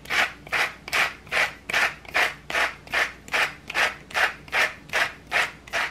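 A hand-twisted doll-shaped spice grinder mill turned back and forth over the bowl, a regular run of grinding strokes at about two and a half a second.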